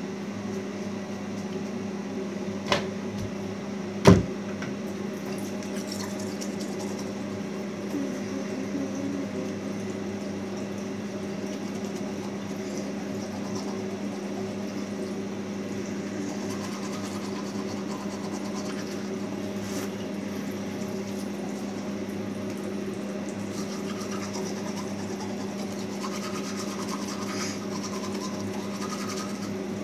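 A steady low electrical hum runs throughout, with faint scrubbing of a toothbrush on teeth. Two sharp clicks come about three and four seconds in, the second the loudest sound.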